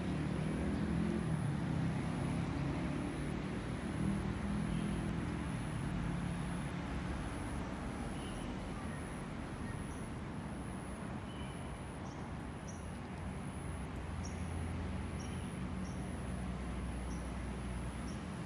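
Steady outdoor background rumble, low and even, with a faint high steady whine and a few faint short high chirps in the second half.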